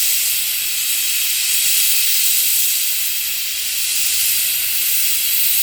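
Steam locomotive Southern Railway 4501 venting steam in a loud, steady hiss.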